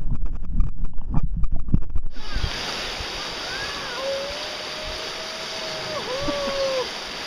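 Music with a thumping beat for about two seconds, then a cut to the steady rush of a river rapid's white water. Over the water a person's voice calls out in long, drawn-out tones.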